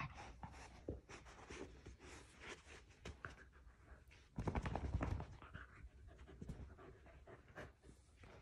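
Puppy panting while it tussles with a large plush stuffed toy, with soft rustling of fur against plush and a louder scuffle about halfway through.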